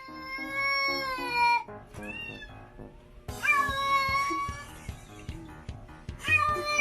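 A cat meowing in long, drawn-out calls: a long meow, a short one about two seconds in, another long one from about three and a half seconds, and a fourth near the end. Background music with a steady beat runs underneath.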